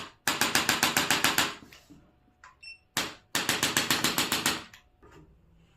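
Percussive tapping on the body: two bursts of rapid sharp taps, about ten a second and each lasting over a second, with a single sharp click just before each burst.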